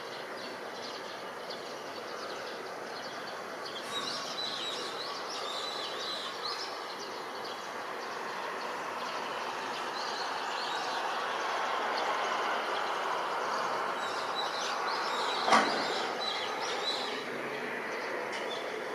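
Outdoor city ambience: a steady rush of noise that swells slowly toward the middle, with small birds chirping now and then and one sharp knock about fifteen seconds in.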